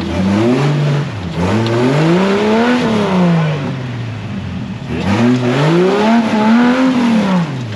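Off-road vehicle engine revving up and easing off twice in long swells while crawling over an obstacle.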